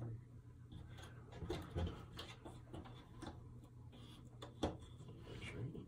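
Cardboard jigsaw puzzle pieces being slid and tapped on a hard tabletop: scattered light clicks, the sharpest about four and a half seconds in, over a low steady hum.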